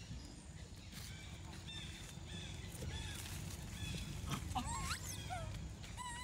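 High-pitched animal calls: a string of short chirps and squeaks, then several quick rising squeals near the end, over a low steady rumble.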